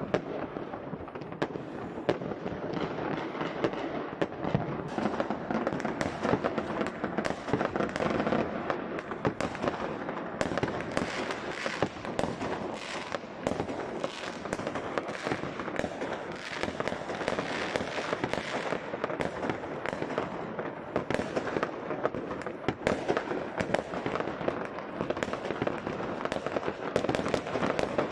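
Many fireworks going off at once: a dense, unbroken barrage of bangs and crackling, with sharp reports following one another every fraction of a second.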